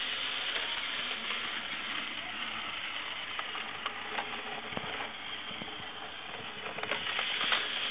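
Battery-powered toy train engine running along plastic track: a steady motor whir with scattered light clicks.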